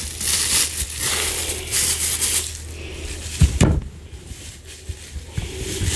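Close-miked rustling and handling noise for about two and a half seconds, then a single low thump about three and a half seconds in, over a steady low hum.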